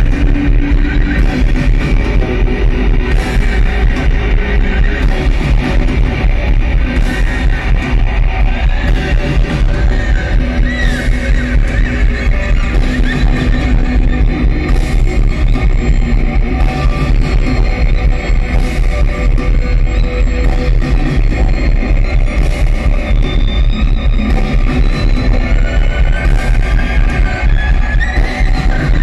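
A live rock band playing loud, with amplified guitar, bass and drums keeping a steady beat. A higher instrument slides up and down in pitch now and then.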